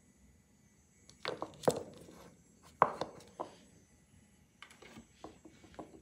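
Small clicks and knocks of gel-polish bottles and brush caps being handled and set down on a table: two short clusters of knocks about one and three seconds in, then a few faint ticks near the end.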